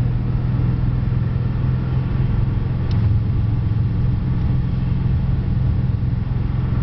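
Car driving along at a steady speed, heard from inside the cabin: a steady low drone of engine and tyre noise.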